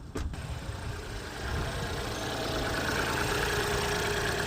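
Car starting with a failing starter motor: a sharp click just after the start, a short uneven crank, then the engine catches and settles into a steady idle from about a second and a half in.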